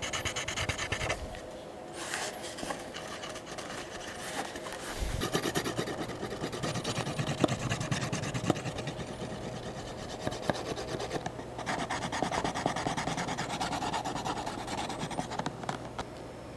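Hand edge slicker rubbed quickly back and forth along the edge of a leather holster, a dry rasping friction: the leather edges being slicked and burnished.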